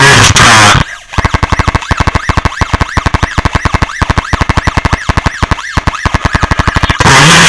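Electronic siren from an Arduino Nano driving a small amplifier and speaker, chopped into rapid pulses about ten a second with its pitch sweeping up and down, like a car alarm. A loud harsh noise comes first and cuts off about a second in, and returns near the end.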